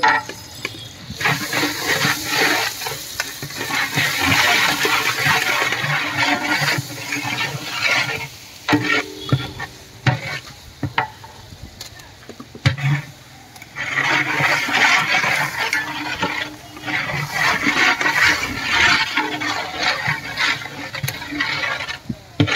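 Long-handled ladle stirring sliced onions and spice paste frying in oil in a huge aluminium pot. The scraping and sizzling come in waves with the strokes of the ladle, with a few sharp knocks.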